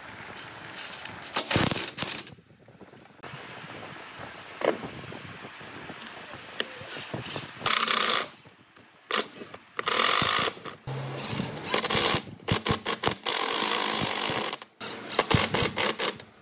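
Cordless drill/driver driving screws into wood in several short runs, with knocks in between.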